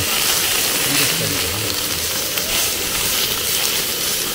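Slices of pork belly sizzling on a hot cast-iron grill pan: a steady frying hiss.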